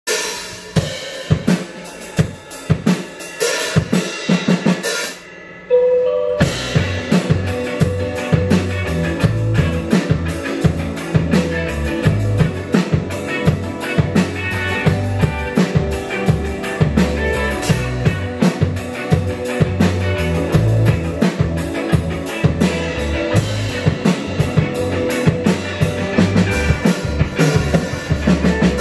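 Live rock band playing an instrumental intro on drum kit, electric bass and electric guitars. Sparse drum hits open it, the sound drops away briefly around five seconds in with one held note, then the full band comes in with a steady drum beat.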